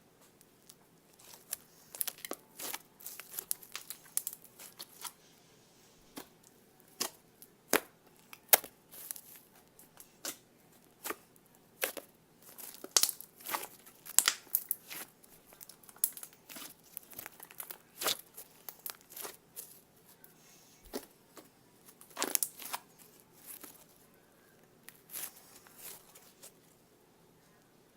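Slime being handled for ASMR, giving a stream of irregular sticky crackles and clicks with a few short pauses.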